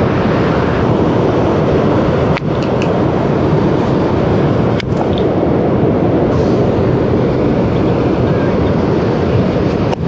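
Steady rushing roar of wind buffeting the microphone, with ocean surf behind it. There are two brief clicks, about two and a half and five seconds in.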